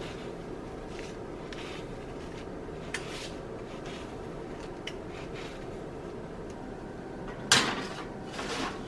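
Faint strokes of a serrated knife scoring raw bread dough, over a steady low hum. Near the end comes a loud metallic clatter as the metal baking sheet is set onto the oven rack, followed by a shorter scrape as it is pushed into place.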